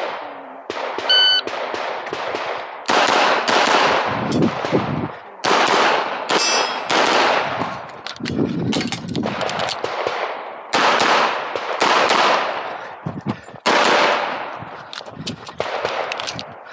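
A shot timer beeps once about a second in. Then a CZ Accu-Shadow 2 pistol fires rapid strings of shots, mostly in quick pairs, each crack followed by a short echo.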